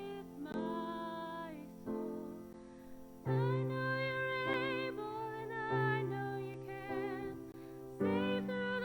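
Slow music: long held notes with vibrato, sung, over sustained keyboard chords that change every second or two.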